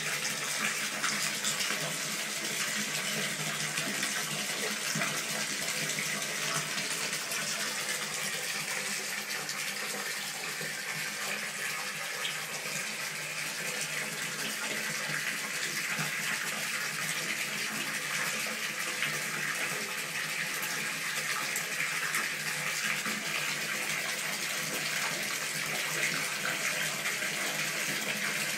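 Bath tap running steadily, water pouring into and splashing in the bathtub.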